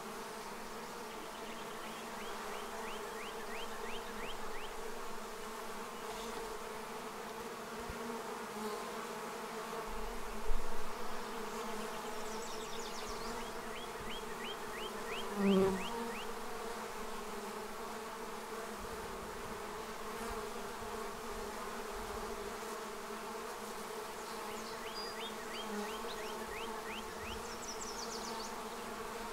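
A honey bee swarm humming steadily at a nucleus hive as the bees move from the net up into the hive. The hum swells briefly louder about ten and fifteen seconds in.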